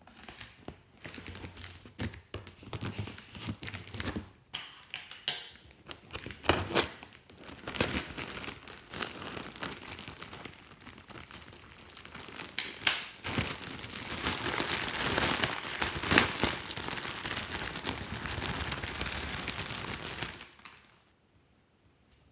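Hands kneading and stretching glossy slime, making dense wet crackling and clicking full of tiny pops. It grows louder and thicker about halfway through, then stops abruptly shortly before the end.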